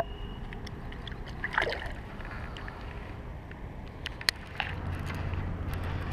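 Shallow water sloshing at the bank just after a fish is let go, with a few sharp clicks. A low steady hum sets in about two-thirds of the way through.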